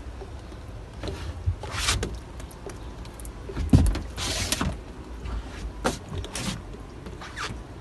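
White liquid wood sealer being poured from a container and splashing onto bare plywood boat decking, in several short splashing hisses, with a single thump a little before the middle.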